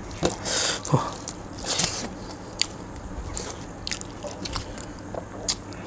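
Eating sounds: chewing and wet mouth smacks with short, sharp clicks scattered through, as two people eat rice and chicken curry with their hands from steel plates.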